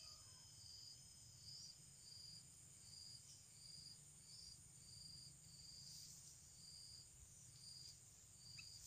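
Faint insect chirping: a short, high chirp repeating a little more than once a second over a steady high-pitched drone.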